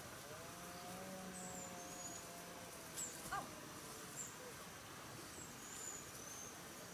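Faint outdoor ambience with a distant, drawn-out animal call held for about three seconds, thin high chirps that glide down, and a couple of sharp clicks about three seconds in.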